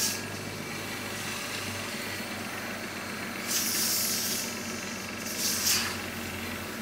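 Medical suction machine (aspirator) running with a steady hum, with hissing as the catheter draws thickened phlegm from a child's airway, once about halfway through and again briefly later.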